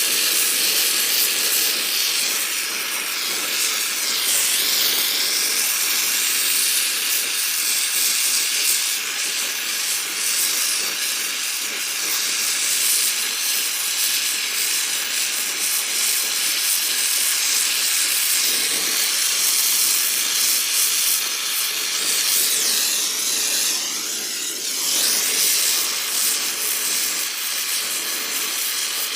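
Brazing torch flame hissing steadily while heating a copper refrigerant line joint, its tone shifting a couple of times as it plays over the work.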